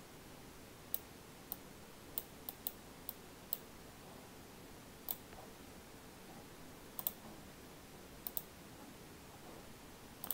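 Clicks of a computer's mouse or trackpad as pen strokes are drawn: about a dozen short, sharp clicks at uneven intervals, some in quick pairs, over faint room hiss.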